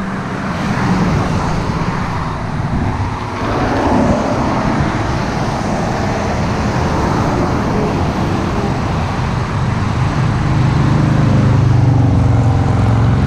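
Traffic on a busy highway: a continuous, very noisy rush of cars passing close by, swelling and easing as vehicles go past, with a deeper engine drone building over the last few seconds.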